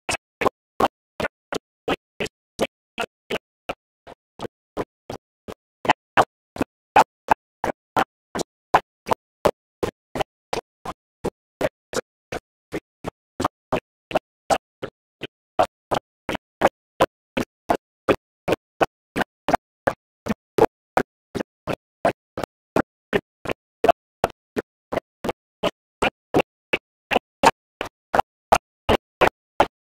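A steady, evenly spaced train of short pops or clicks, about two and a half a second, some louder than others, with silence between them.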